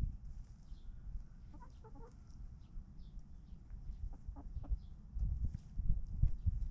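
Chickens clucking in short, scattered calls, with faint thin high chirps. A low rumble runs underneath and grows louder in the last couple of seconds.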